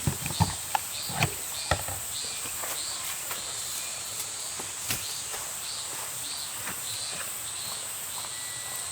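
Autumn insects chirping in a forest: a steady high buzz under a regular chirp about twice a second. A few sharp clicks and knocks in the first two seconds.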